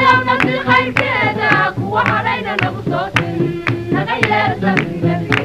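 Music starting suddenly: a sung vocal line over regular percussion hits, with held instrument notes coming in during the second half.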